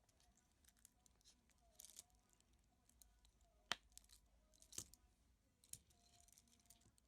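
Faint handling of a wristwatch during a battery change: light scratching and a few small sharp clicks of metal parts and tools, the sharpest about three and a half seconds in, then two more about a second apart each.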